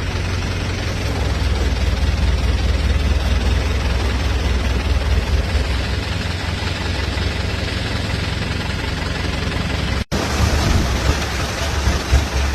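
Motor boat engine running steadily, a strong low drone under a wash of rushing noise, with a momentary dropout about ten seconds in.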